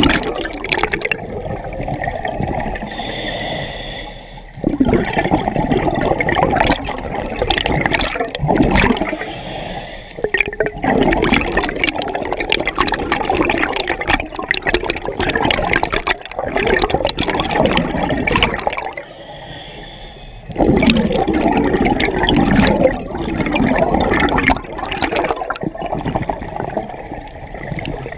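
Scuba diver breathing through a regulator underwater: exhaled bubbles gurgle and rush past the mask-mounted camera in loud bursts lasting several seconds. Shorter, quieter gaps between breaths come about every five or six seconds.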